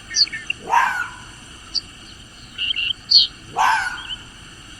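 Animal calls: two loud rising calls about three seconds apart, with short high bird chirps between them.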